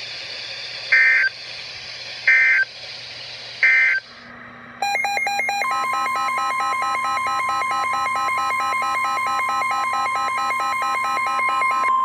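NOAA Weather Radio data signal: three short buzzing SAME end-of-message bursts, about 1.3 s apart, closing the watch broadcast. From about five seconds in, a rapidly pulsing electronic alert starts. About a second later the steady 1050 Hz weather radio warning alarm tone begins under it, signalling a new warning.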